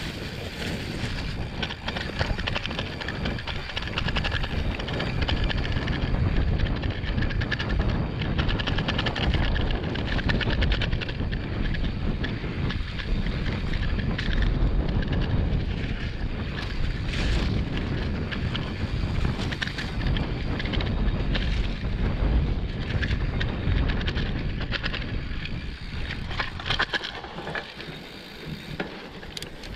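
Mountain bike being ridden over rough ground: a continuous rattle and rumble of tyres and bike, with wind buffeting the microphone.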